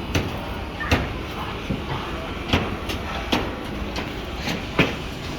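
Irregular sharp knocks and clanks of workers handling steel rebar, over a steady background noise of the building site.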